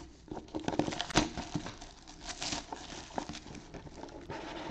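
Clear plastic wrap crinkling as a sealed trading-card box is handled and opened, with scattered light taps and scrapes of the cardboard box.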